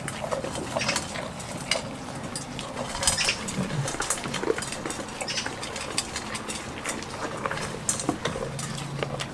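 Goats eating from metal feed bowls: irregular crunching and clinking as their muzzles knock against the bowls.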